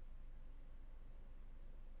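Faint room tone: a steady low hum with light hiss and no distinct events.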